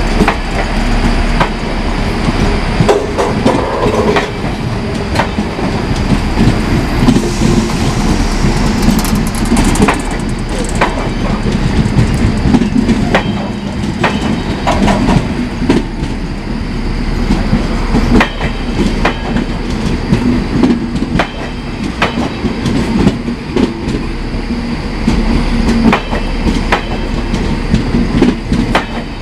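Passenger train coaches rolling past, their wheels clicking and clacking over rail joints in a continuous stream, with brief thin wheel squeal.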